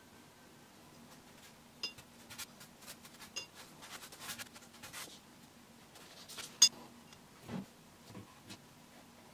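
Light scratching of a paintbrush drawn across watercolour paper, with a few sharp little clinks of the brush on the paint tin and water jar. The loudest clink comes about two-thirds of the way in, followed by a soft thump.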